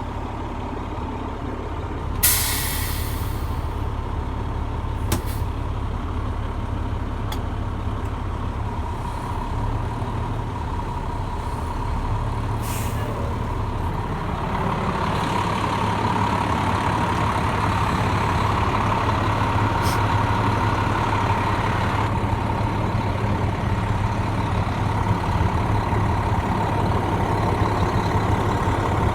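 A 2000 Hurricane fire engine running at the pump panel while pumping, its engine a steady drone under a steady whine. A short loud hiss of air comes about two seconds in, and the engine grows louder about halfway through and holds there.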